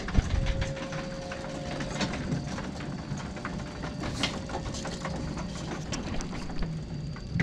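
Handling noise: rustling and many scattered clicks close to the microphone over a steady low rumble, as the camera is carried covered up.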